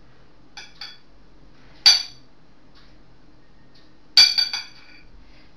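A spoon clinking against a clear glass salad bowl while mayonnaise is spread over a salad layer: a few light taps, then a sharp ringing clink about two seconds in and a louder cluster of clinks about four seconds in.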